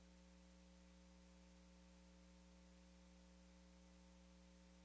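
Near silence, with a steady low electrical mains hum.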